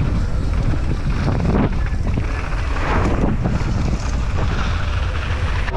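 Wind buffeting the microphone with a loud, steady rushing noise, as heard from a camera on a mountain bike riding downhill at speed.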